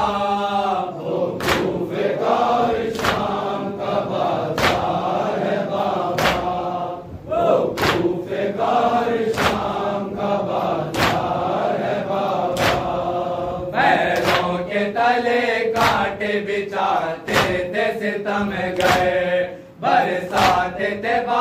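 Male voices chanting an Urdu nauha lament together, carried over a steady beat of chest-beating (matam): sharp slaps from many open hands on chests, in unison a little more than once a second.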